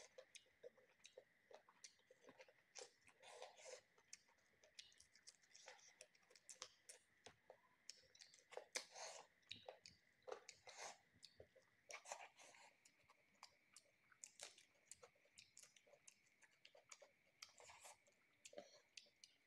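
Faint eating sounds: a person chewing a mouthful of rice and chicken, with irregular wet mouth clicks and smacks and fingers working the food, the loudest about nine seconds in. A faint steady high whine runs underneath.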